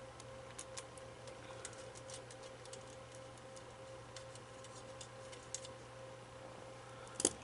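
Faint, scattered small clicks from a hard drive being worked free of a desktop PC's drive bracket, over a steady faint hum, with a sharper clack near the end as the drive comes out.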